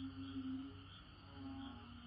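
Frogs calling in a chorus: low, humming notes, each held for about half a second, repeating and overlapping, over a steady low drone.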